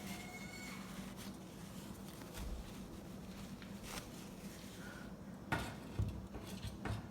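A few faint clicks and knocks over a low steady hum, the sharpest about five and a half and six seconds in.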